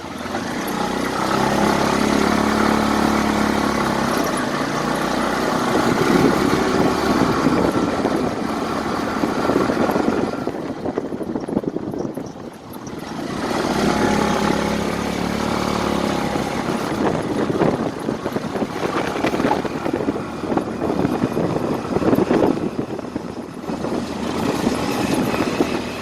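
Passing motor vehicle engines in street traffic, swelling and fading as they go by, with a clear lull about twelve seconds in.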